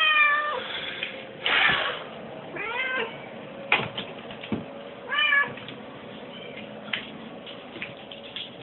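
Cat meowing three times in short calls that bend in pitch, about two and a half seconds apart. A brief noisy burst comes between the first two, and light clicks are scattered through.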